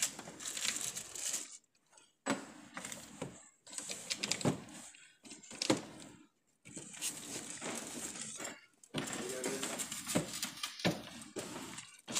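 Handling noise during furniture assembly: plastic sheeting crinkling, and a few sharp clicks and knocks of screws and metal leg brackets against the wooden tabletop, broken by short pauses.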